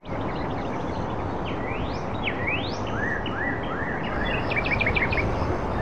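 Birds chirping and calling over a steady background hiss, fading in at the start. Two long rising whistles come about two seconds in, and a quick run of short chirps near the end.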